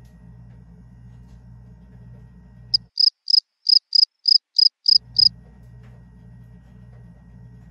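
Cricket chirping sound effect edited in as the usual 'crickets' gag for an awkward silence: about ten short, high chirps at roughly four a second for some two and a half seconds. Before and after it there is a faint steady low hum.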